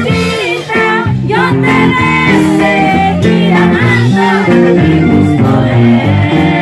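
Live band music: women's voices singing into microphones over a band with electric bass and guitar.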